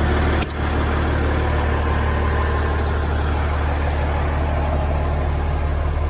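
Pierce fire truck's diesel engine idling steadily, a constant low hum.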